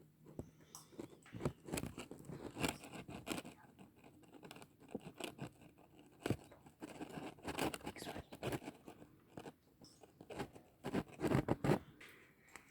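A utensil stirring and scraping in a bowl, mixing beaten egg with chopped chicken and vegetables: irregular clicks and scrapes.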